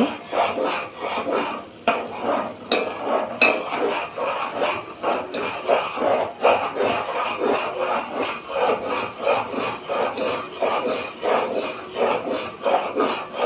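Steel spoon stirring and scraping around a metal pot of melted butter boiling on a high gas flame, in a steady rhythm of scrapes and clinks about two a second. This is the butter being cooked down into ghee, stirred so it does not stick to the bottom.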